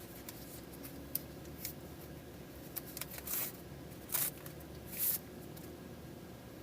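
Packaging rustling and scraping in a handful of short bursts spread over several seconds, the loudest two about four and five seconds in.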